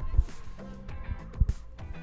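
Background music with low drum beats and sustained tones.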